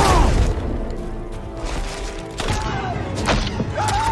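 Film soundtrack: a sudden loud hit at the start over music, followed by a few more sharp hits later on.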